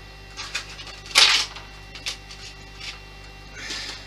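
Small model parts being handled: a few short rustles and clicks, with one louder scrape about a second in, over a steady electrical hum.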